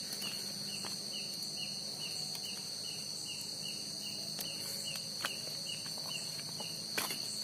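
Night chorus of crickets: a steady high-pitched trill, with a regular chirp repeating about two to three times a second. A few faint clicks, the clearest near the end.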